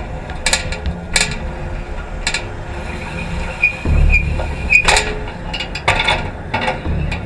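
Rusty city bicycle (mamachari) rattling and creaking as it is ridden: irregular sharp metallic clicks and clanks, with a few short squeaks about halfway through, over the low rumble of riding. The rust is what makes the metal grind and squeak.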